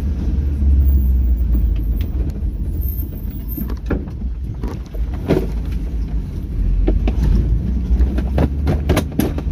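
Vehicle driving along a rough village road: a steady low rumble, with knocks and rattles from bumps that come more often from about halfway through.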